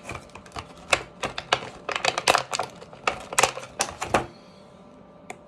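Quick, irregular clicks and clatter of hard plastic toy pieces being handled, stopping a little after four seconds.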